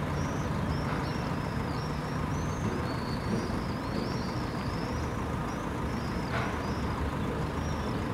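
Steady low rumble of city traffic, with many short high chirps repeating above it.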